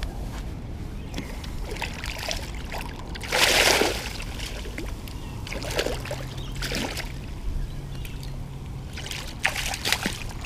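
A hooked fish thrashing in the shallows at the water's edge as it is landed, with one loud splash about three and a half seconds in, a couple of smaller splashes after it, and a quick run of splashes near the end.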